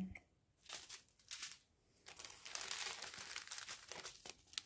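Clear plastic bead packets for a diamond painting kit crinkling faintly as they are handled: two short rustles in the first second and a half, then a longer stretch of crinkling in the second half.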